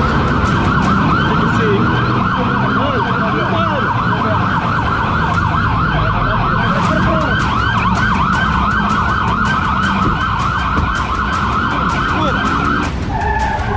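Police car siren in a fast yelp, its pitch sweeping up and down about four times a second over the low rumble of the car underway in a chase. The yelp cuts off near the end.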